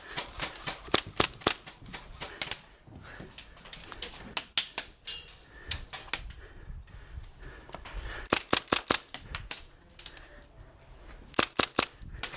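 HPA-powered Tippmann M4 airsoft rifle firing in four bursts of rapid, sharp clacks, about six or seven shots a second, with short pauses between bursts.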